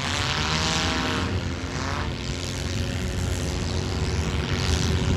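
Several four-cylinder demolition derby car engines running at once, revving up and down, with louder, rougher swells about half a second in and again near the end.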